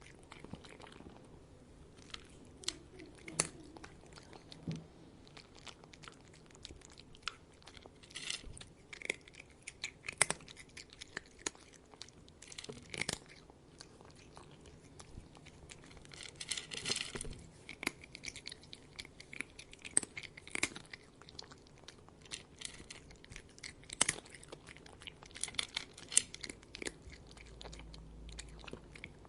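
A cat eating, chewing and crunching its food with irregular sharp crunches that come in clusters with short pauses between.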